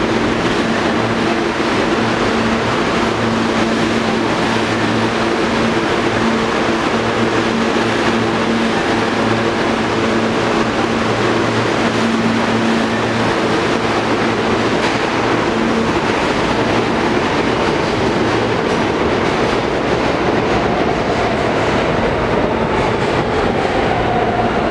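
Kawasaki R160B subway train running along the platform, a steady loud rumble of wheels on rail with a steady hum over it. Near the end a tone slides down in pitch.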